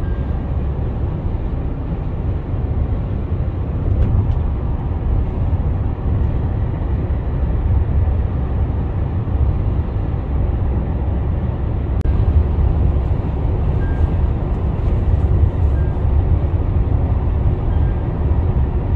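Steady low road and tyre rumble with the drone of the diesel engine, heard inside the cabin of a Tata Harrier cruising at highway speed.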